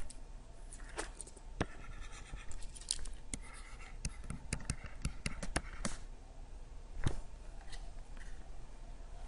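Stylus writing on a tablet screen: a run of sharp taps and clicks with faint scratching between them, densest about halfway through.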